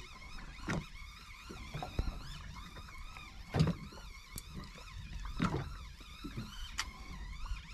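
A boat's engine running with a steady low hum, with a handful of scattered knocks and thumps.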